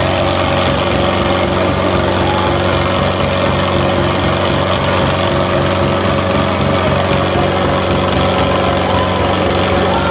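Mahindra Arjun 555 tractor's diesel engine running steadily at an even speed, with a regular low chug.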